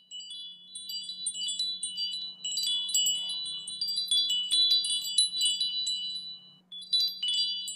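Wind chimes tinkling: many high, ringing metallic tones struck in quick, irregular, overlapping succession, with a brief break near the end.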